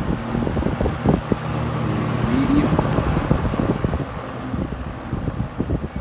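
1977 Kmart (Lakewood) K-223 20-inch box fan with its McMillan motor running on high, its airflow buffeting the microphone with a gusty rumble.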